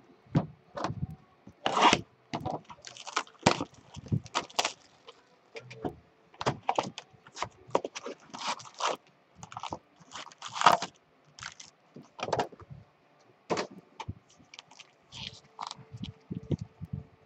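Cardboard trading-card box being opened and its wrapped card packs pulled out and stacked: irregular scraping, rustling and tapping of cardboard and pack wrappers.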